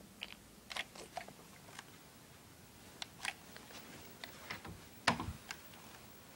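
Handling noise from a handheld phone and toy gun: scattered light clicks and taps, with one louder dull thump about five seconds in.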